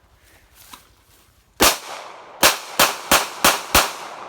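A GSG .22 LR pistol firing CCI rimfire rounds: six sharp shots. The first comes about a second and a half in, and the rest follow quickly at about three a second.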